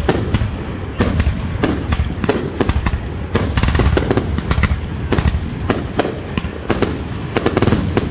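Aerial fireworks going off in a rapid barrage: shell bursts and launches banging one after another, several a second, over continuous crackling. The strikes come thickest about three and a half seconds in.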